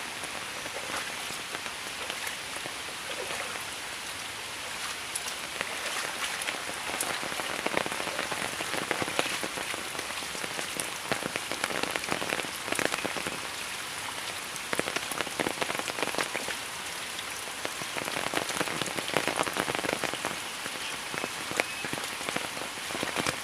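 Rain falling and pattering on surfaces and standing floodwater: a dense steady hiss full of small drop ticks, swelling in irregular louder stretches.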